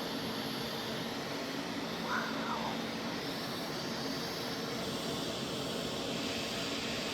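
Steady hiss of welding with a bronze filler rod on a tank, over a steady low hum. A short chirp rises and falls about two seconds in.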